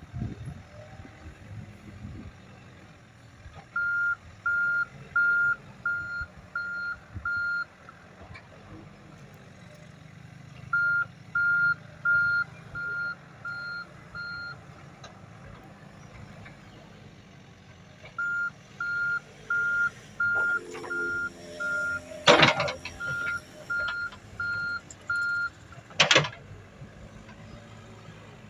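Komatsu WB93R backhoe loader's reverse alarm beeping in three runs, about one and a half beeps a second, over its diesel engine running steadily. Two sharp loud knocks come near the end, about four seconds apart.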